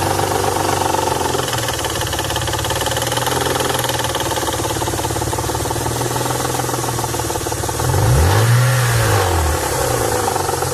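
1992 Nissan 300ZX's naturally aspirated 3.0 L V6 idling with a rapid, steady knocking that came on out of nowhere. About eight seconds in the throttle is blipped once, the engine note rising and falling back to idle.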